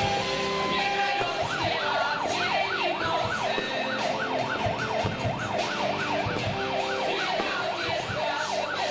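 Siren yelping rapidly up and down in pitch, about two and a half sweeps a second, starting about a second in.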